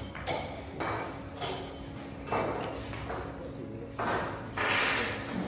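A series of irregular knocks and clatters on a work table as pasta dough is shaped, about six in a few seconds, the last two near the end longer and scraping.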